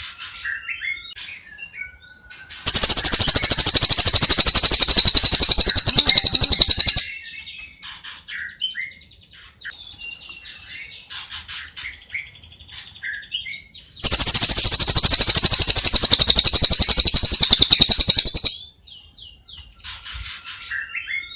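Recorded songbird songs for bird training, mixing birds such as long-tailed shrike, white-rumped shama and starling: varied quick chirps and whistles, twice broken by a very loud, rapid buzzing trill lasting about four seconds, the first starting near three seconds in and the second about halfway through.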